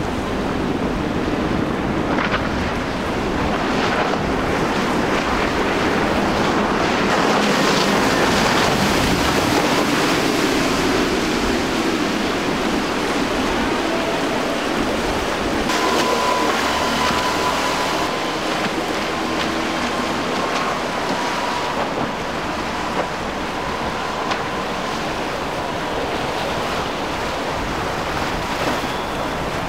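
Outboard-powered boats running through breaking waves: rushing surf and spray with wind buffeting the microphone. From about halfway through, a steady engine whine sits over the water noise.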